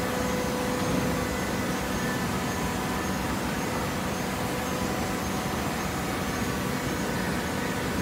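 TCM automatic horizontal hydraulic baler running while fibre is fed into its hopper: a steady mechanical din with a faint steady hum.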